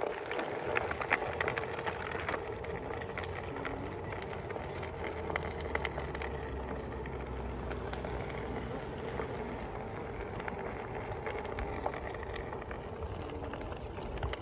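Onewheel electric board rolling along a concrete path: its hub motor gives a steady whine over a low tyre rumble, with scattered small clicks and ticks.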